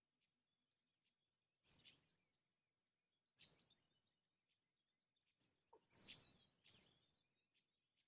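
Faint outdoor ambience: a steady high whine, scattered faint small bird chirps, and a few brief hissing swishes that fade out, about two, three and a half and six seconds in.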